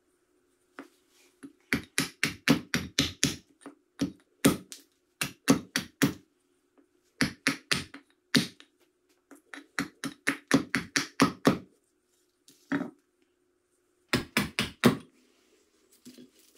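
Hatchet carving a small wooden blank held on a log chopping block: quick, light chopping strikes in runs of several at about four to five a second, with short pauses between runs, as a handle is roughed out.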